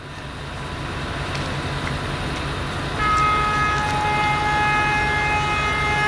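A diesel train's engine running with a steady low pulsing rumble; about halfway in a locomotive's multi-tone air horn sounds one long chord that carries on past the end.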